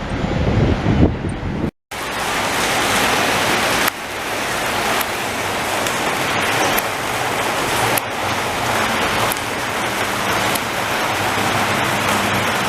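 Gusty wind buffeting the microphone for about the first two seconds. After an abrupt cut comes a steady, even hiss of rain that runs on unchanged.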